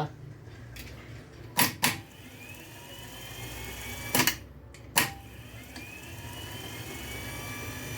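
A Chevrolet Cobalt starter motor being bench-tested on a weak battery. Sharp clicks come as it is switched on and off, and twice the motor spins up with a faint whine that rises in pitch and then holds.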